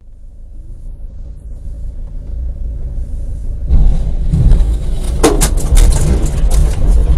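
Low vehicle rumble that turns suddenly much louder about four seconds in as a heavy truck comes past close by, with a run of sharp clattering knocks about a second later.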